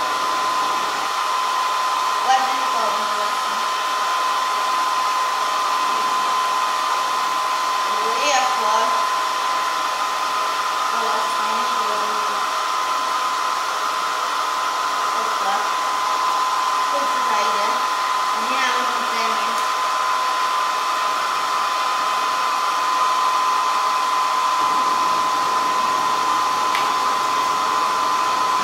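Hair dryer running steadily, a constant high whine over the rush of blown air.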